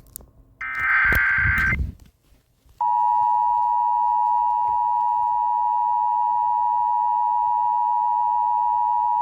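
Emergency Alert System broadcast: a short burst of screechy digital data noise about a second in, the SAME header that encodes the alert. From about three seconds in comes the EAS attention signal, a loud, perfectly steady alarm tone just under 1 kHz, which signals that a warning message is about to be read.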